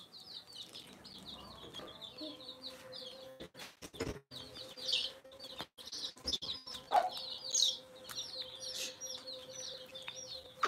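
Chicks peeping in a steady stream of short high chirps, several a second, with a single lower cluck about seven seconds in. A few sharp clicks come around four seconds in, over a faint steady hum.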